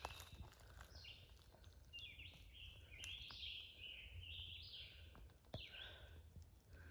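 Faint songbird singing, a run of quick chirping phrases in the middle, over a low rumble.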